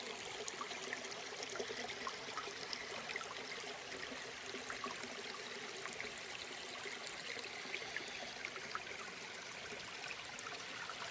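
A creek running steadily, with continuous rushing and trickling water.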